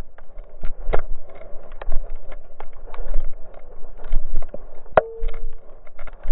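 Slowed-down sound of a Labrador retriever running through dry fallen leaves with a harness-mounted camera: irregular, deep thuds and crunches of paws and the jostled mount, several a second. A short steady tone sounds about five seconds in.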